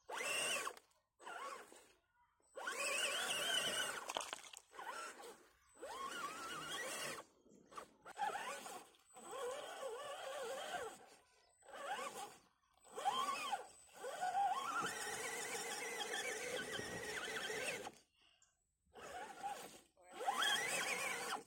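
Brushed 540-size electric motor and gear drive of a 1:10 scale RGT EX86100 rock crawler, whining in repeated throttle bursts. The pitch rises and falls, with silent pauses between bursts.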